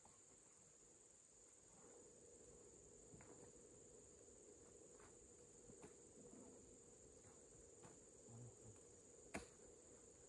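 Faint, steady high-pitched insect drone, with a few faint scattered clicks and one sharper knock near the end.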